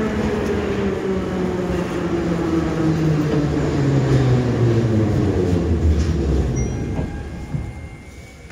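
Ezh3 metro train braking into a station, heard from inside the car: the traction motors' whine falls steadily in pitch as the train slows, over wheel and rail rumble. Everything dies away as it comes to a stop near the end.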